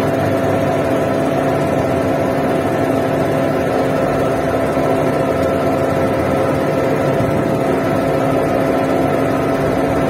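Putzmeister 49-5 truck-mounted concrete pump running: the engine and hydraulic pump give a loud, steady drone with a constant hum, unchanging throughout.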